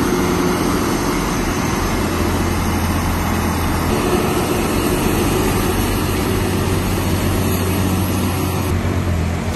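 Diesel engine of a Hyundai Xcient semi-truck running steadily while hauling a lowboy trailer loaded with excavators, a low steady hum over road noise.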